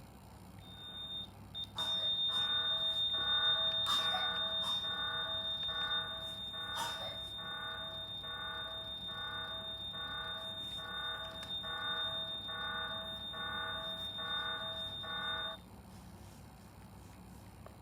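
A recorded fire alarm sound played through an Alexa smart speaker: a steady high tone over a lower, rapidly pulsing beep, cutting off suddenly near the end.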